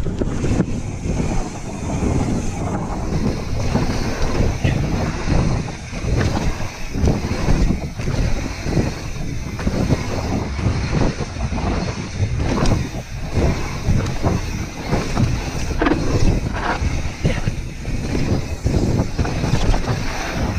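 Mountain bike riding fast down a dirt and gravel trail: wind rushing over the microphone together with tyre roll, broken by frequent irregular knocks and rattles from the bike over bumps.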